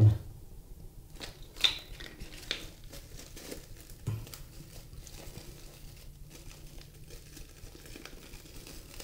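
Thin aluminium foil and plastic film from the wound element of an AC film capacitor crinkling and tearing as they are pulled apart by hand, in irregular crackles. The sharpest crinkle comes about a second and a half in.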